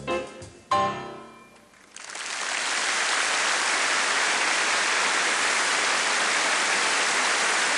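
A grand piano piece ends on a final chord that rings out and fades. About two seconds in, audience applause starts and holds steady.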